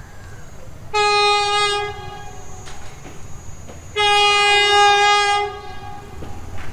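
Air horn of an approaching GEA-class diesel locomotive, sounded twice as the train nears the station: a blast of about a second, then a longer one of about a second and a half, both on one steady chord.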